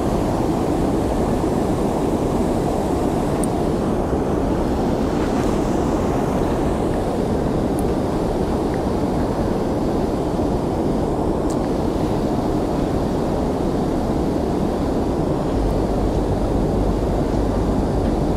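Steady wind noise buffeting the microphone over water lapping against a small fishing boat's hull. The low rumble gets heavier near the end.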